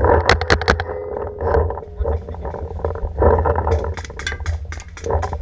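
Paintball marker firing two quick bursts of sharp pops, about five shots near the start and another burst about four seconds in, over the rumble and knocking of the barrel-mounted camera being moved about.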